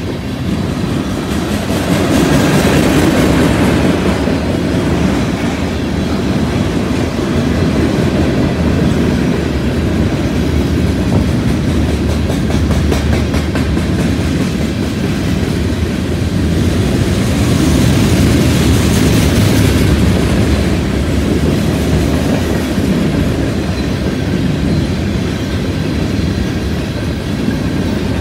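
Freight train of loaded tank cars rolling steadily past close by: a continuous low rumble with wheels clacking over rail joints and a junction switch, swelling louder twice.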